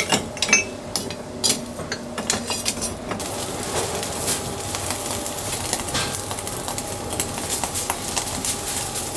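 Kitchen utensils clinking and knocking against dishes, then from about three seconds in a steady hiss with small crackles.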